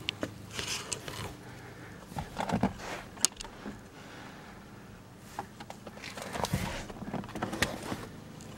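Scattered clicks, knocks and rustles of handling and movement inside a car's cabin, over a faint steady low hum.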